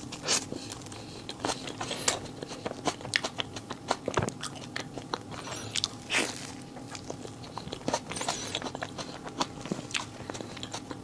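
Close-up eating of a cream puff: crisp crunching bites and chewing, with many small crackles between bigger crunches every second or two. The eating sounds were dubbed in afterwards as sound effects.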